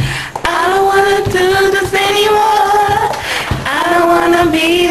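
Women singing a cappella without words, holding two long, steady notes separated by a short break about three and a half seconds in.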